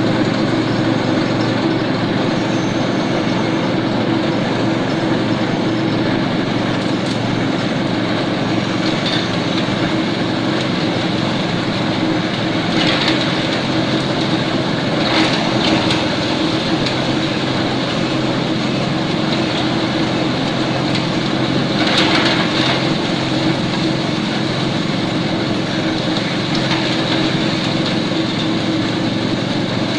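Small compost shredder running steadily, its blades chopping leafy green branches fed into the hopper, with several brief louder bursts of chopping as bunches go in.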